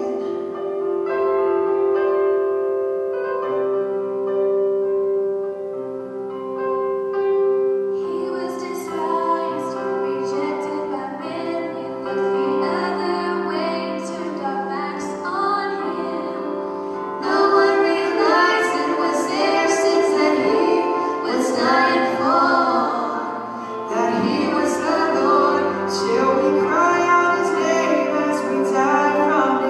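Music: a slow song with held accompaniment chords, and a vibrato singing voice that comes in about eight seconds in and grows louder near the middle.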